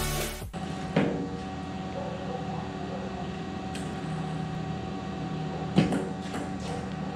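Table tennis ball struck and bouncing in a short rally: a run of sharp clicks roughly a third of a second apart in the second half, the first the loudest, over a steady room hum. Electronic intro music cuts off at the very start.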